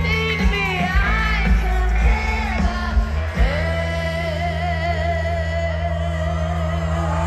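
Live pop band performing with a female lead singer: her voice moves through a sung line, then holds one long note from about halfway through, over a steady bass.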